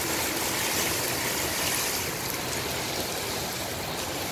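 Heavy rain pouring down onto a flooded road, a steady hiss.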